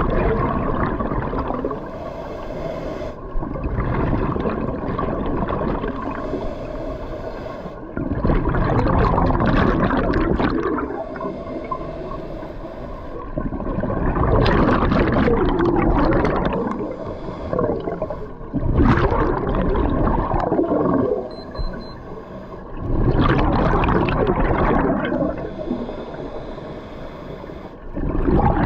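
Scuba diver breathing through a regulator underwater: loud rumbling, bubbling gushes of exhaled air about every five seconds, with quieter stretches between breaths.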